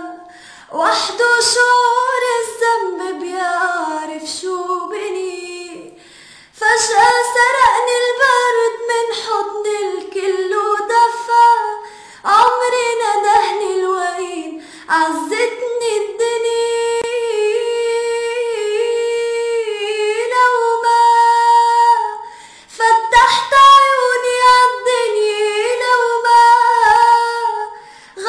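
A woman singing an Arabic song unaccompanied: long ornamented runs and held notes with vibrato, in several phrases broken by short pauses for breath.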